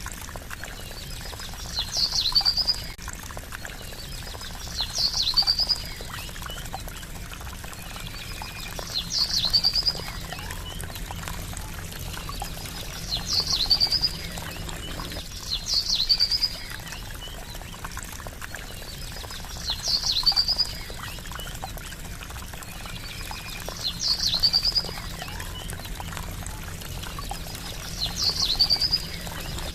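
Trickling water running steadily, with a short, high bird call sounding about every two to four seconds over it.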